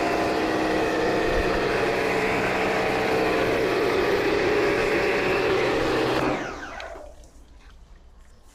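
Bosch electric pressure washer running steadily with its motor-pump hum and water spray, then switched off about six seconds in, its motor winding down with falling pitch.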